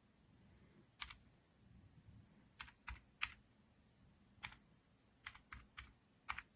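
Keys of a wireless numeric keypad being pressed: about nine separate clicks at uneven intervals, some in quick runs of two or three.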